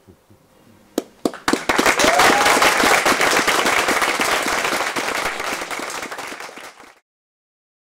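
Theater audience applauding: a few scattered claps about a second in, quickly swelling into full applause with one rising whoop, then slowly thinning before the sound cuts off suddenly near the end.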